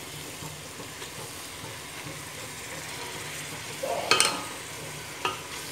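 Chicken, onions and tomatoes sizzling in an open pressure cooker as a wooden spatula stirs them, with a clatter of the spatula against the pot about four seconds in and a single knock near the end.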